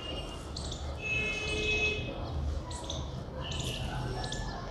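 Small birds chirping: short, high-pitched calls repeating irregularly over a low background rumble.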